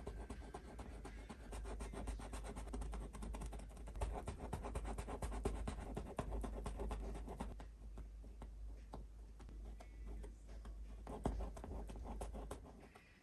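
Oil-paint brush scratching and rubbing across a canvas in quick, repeated strokes, with a low rumble underneath. The strokes ease off for a couple of seconds past the middle, then pick up again.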